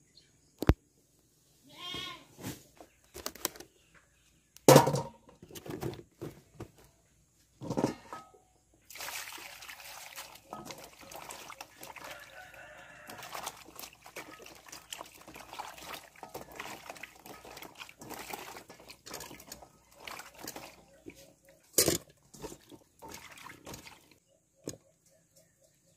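Hands washing vegetables in water in a steel basin: steady splashing and sloshing for about twelve seconds in the middle, with scattered sharp knocks before and after.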